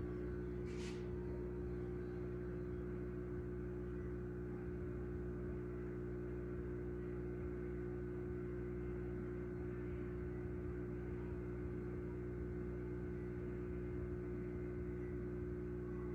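Logitech Z313 computer speakers giving off a steady electrical mains hum, several even tones holding level throughout. This hum is the sign that the speakers are still powered while the arcade cabinet they are plugged into is switched off.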